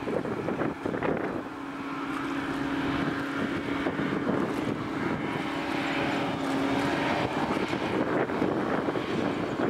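Small hovercraft engines and propellers droning steadily across the water, holding one pitch. Wind buffets the microphone through the first second or so.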